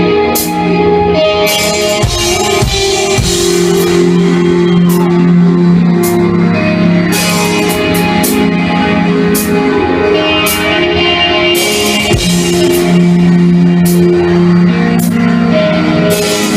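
Live rock band playing an instrumental passage: long ringing guitar chords and bass over drums, with repeated cymbal strokes.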